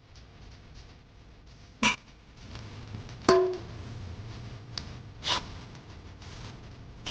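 Three sharp knocks of hard parts being handled, about two seconds, three seconds and five seconds in; the loudest, in the middle, rings briefly with a metallic tone. A low steady hum sits underneath from about halfway.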